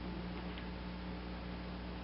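Steady low electrical hum with a faint hiss, and one faint small click about half a second in.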